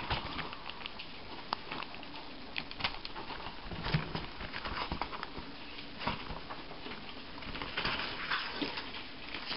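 Intermittent rustling with scattered small clicks and taps from hands handling paper and packaging.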